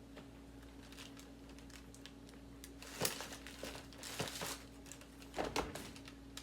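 Packing material being gathered and moved by hand: irregular crinkling and rustling with a few light knocks, in three bursts about three, four and five and a half seconds in.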